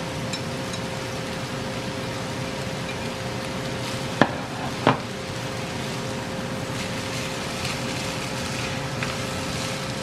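Egg noodles with carrot and onion sizzling in a frying pan while being stirred and tossed with wooden chopsticks. Two sharp knocks come around the middle.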